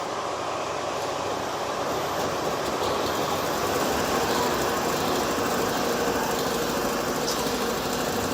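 Computerised pattern perforation machine running with a steady mechanical noise.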